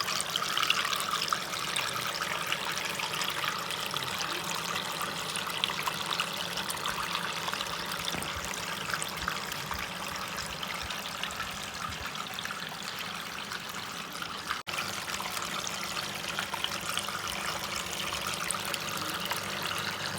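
Water trickling and splashing steadily down a small cement tabletop waterfall fountain, with a momentary break about three-quarters of the way through.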